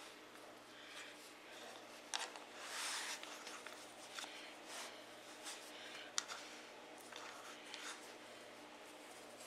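Faint rustling and pressing of hands working soft brioche dough on a bamboo cutting board, with a few sharp light clicks and taps, the loudest about six seconds in. A steady low hum runs underneath.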